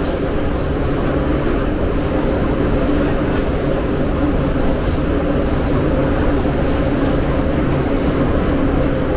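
St. Petersburg metro train running through a tunnel, heard from inside the carriage: a loud, steady rumble of wheels on track with a constant hum over it.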